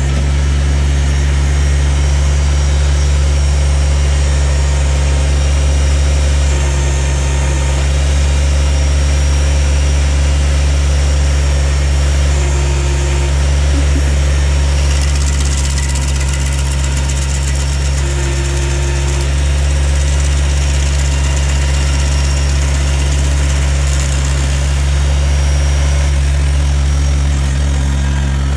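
Kubota BX2350 compact tractor's three-cylinder diesel engine running steadily at an even pitch.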